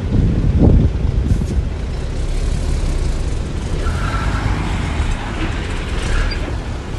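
Heavy diesel earthmoving machinery running steadily with a deep rumble, surging briefly just under a second in. Faint high squeals come through around the middle and near the end.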